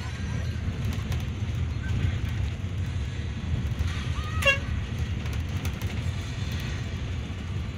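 A Yutong bus's engine and tyres, heard inside the cabin as a steady low rumble while it drives along. About halfway through comes one brief high tone that bends upward.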